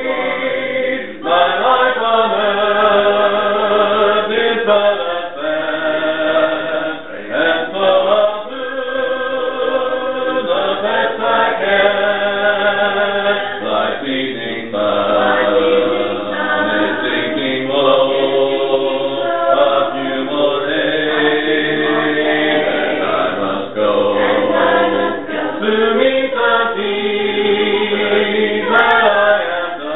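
Church congregation singing a hymn a cappella, many voices together in long phrases with short breaks between lines.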